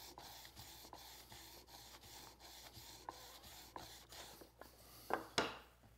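Steel scraper blade rubbed back and forth flat on a 1,000-grit diamond sharpening stone under an MDF block, a faint scraping in quick, even strokes as the burr is honed off the blade's back. Two light knocks near the end.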